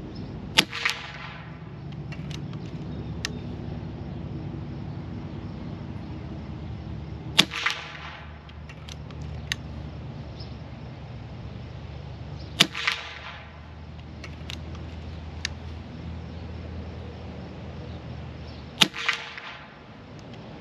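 Unmoderated Cattleman T1 .22 PCP air rifle firing four shots several seconds apart. Each sharp crack is followed a moment later by a fainter second crack.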